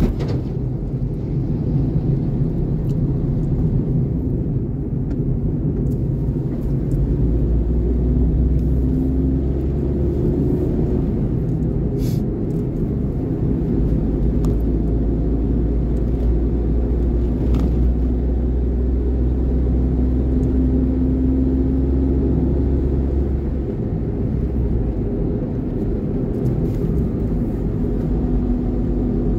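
A road vehicle on the move: a steady low rumble of engine and road noise, with a brief click about twelve seconds in.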